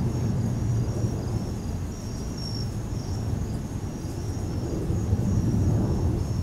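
Wind buffeting the microphone with a low, rough rumble, over crickets chirping in a faint, high, repeated pulse.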